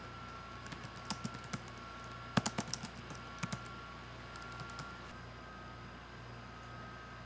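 Laptop keyboard keys tapped in short irregular bursts, a few keystrokes at a time, stopping a little past halfway, over a steady faint hum.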